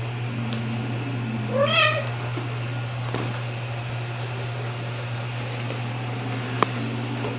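A kitten meows once, a short cry that rises and falls about two seconds in, over a steady low hum. Two light taps come later.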